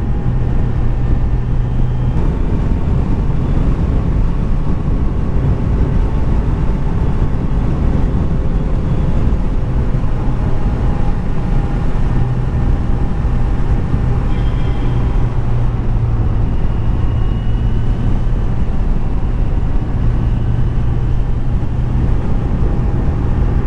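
A vehicle cruising at a steady speed: a continuous low engine hum with road and wind noise, holding level without revving.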